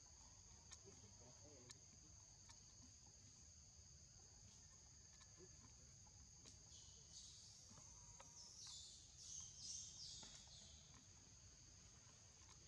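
Faint, steady high-pitched insect trilling with low background hum. A short run of hissy bursts comes in about seven to eleven seconds in.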